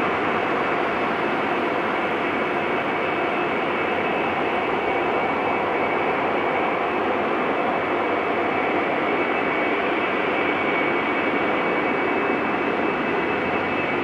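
Jet airliner's turbofan engines at takeoff thrust: a steady, loud roar with a thin high whine running through it.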